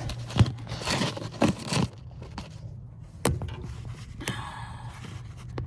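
Handling noise as the camera is moved down to the truck's floorboard: scraping and rustling with a few sharp knocks, over a steady low hum.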